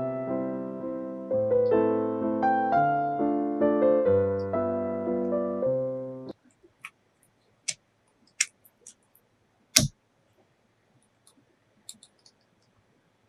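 Electric piano intro music with a repeating melody that cuts off suddenly about six seconds in. After it come scattered soft clicks and one sharper click near ten seconds: close-miked eating sounds.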